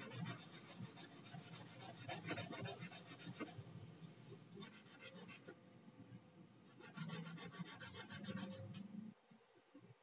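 Clove being rubbed back and forth by hand against a small wet rubbing plate in quick, faint scraping strokes, with short pauses; it stops shortly before the end. The cloves and saffron are being ground into a fine paste.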